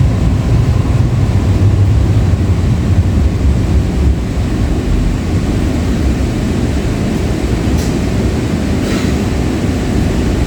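Breda LRV3 light-rail car running on the rails, heard from on board: a steady low rumble of wheels and running gear, with two faint ticks near the end.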